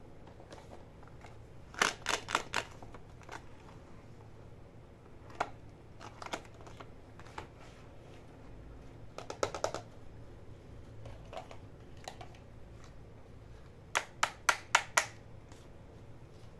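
Hard plastic toy accessories (a pink toy handbag and toy high-heeled shoes) clicking and tapping as hands handle them and set them down on a table. Several short clusters of sharp clicks, with a run of five quick clicks near the end.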